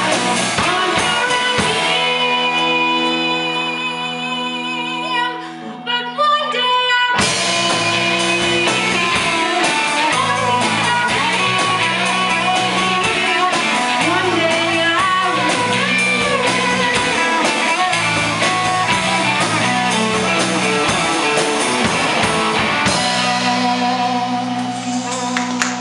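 A vocal group singing with a rock band: guitar and drums. About two seconds in the band drops back to held chords, with a short break. At about seven seconds the full band crashes back in, and near the end it settles into held notes.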